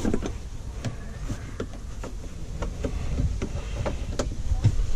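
Rubber shifter boot being pushed by hand into the groove of a Polaris RZR's plastic center console: scattered small clicks and scuffs of rubber and plastic over a steady low rumble.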